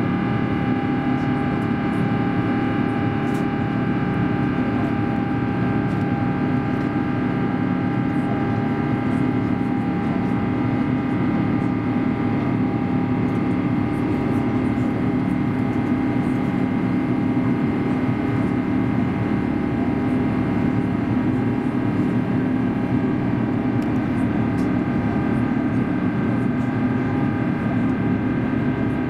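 Steady cabin noise of an Airbus A350-941 climbing after takeoff, its Rolls-Royce Trent XWB-84 engines at climb power, heard from inside the cabin. A continuous rush of airflow and engine noise with several steady tones held over it.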